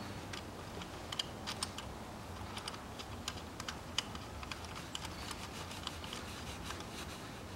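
Small irregular clicks and taps of plastic and metal as hands fit the fuel return-line connectors onto the injectors of a 2.2-litre diesel engine, over a low steady hum.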